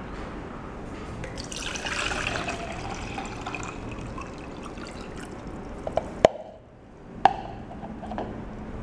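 Water poured into a clear plastic beer mug, splashing as it fills. In the second half come two sharp knocks about a second apart.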